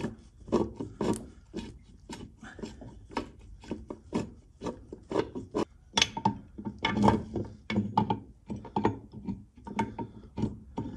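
Irregular clicks, clunks and scrapes of steel transmission parts being worked by hand inside a 1953 Dodge three-speed transmission case, as gears and the shaft knock against each other and the case.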